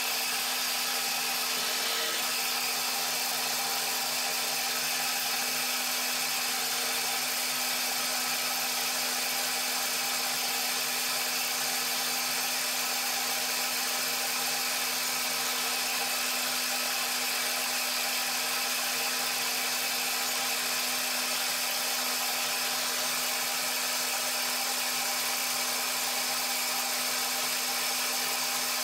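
Benchtop milling machine running steadily with an edge finder in its spindle: a constant motor hum with a whine above it, unchanging throughout.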